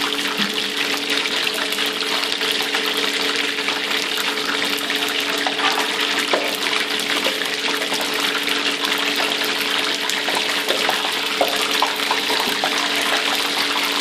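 Battered chicken lollipops deep-frying in a wok of hot oil: a steady sizzle and crackle of bubbling oil, with a steady low hum underneath.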